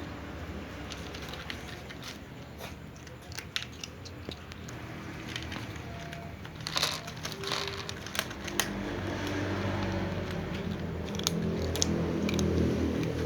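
Cats crunching dry food, with irregular sharp crunches and clicks. A low drone grows louder in the second half.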